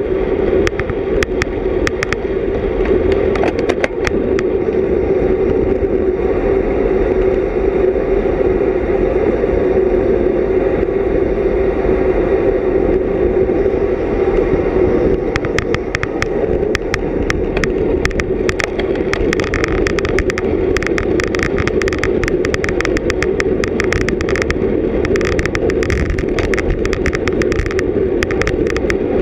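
Steady rush of wind and tyre noise from a bicycle ridden at race speed, picked up by a GoPro camera's microphone. Many sharp clicks run through it and come thicker from about halfway through.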